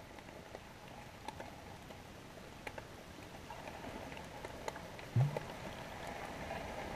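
Amplified underwater audio from a GoPro Hero 3 in its housing: a faint steady hiss with scattered sharp clicks. About five seconds in comes a brief low hum, the loudest sound, and the hiss grows slightly fuller after it.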